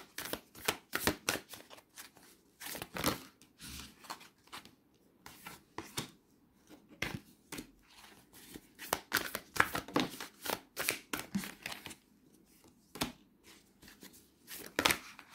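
A deck of oracle cards being shuffled by hand: quick irregular clusters of card flicks and slaps, with a couple of short pauses.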